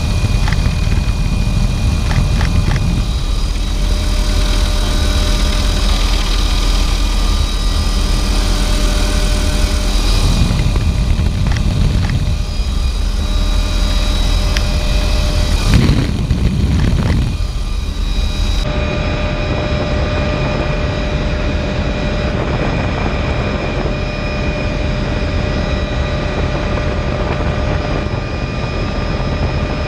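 Doors-off helicopter in flight: a steady drone of engine and rotor with wind rushing past the open side, the wind noise swelling a few times.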